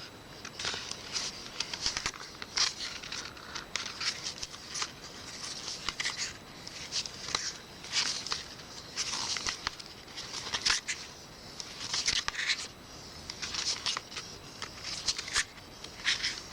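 Pages of a 48-page booklet being turned one after another by hand: short, irregular papery swishes and rustles, roughly one or two a second.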